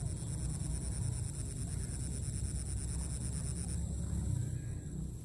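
Wind rumbling on the microphone, with a faint, high, pulsing whine that stops about two-thirds of the way through.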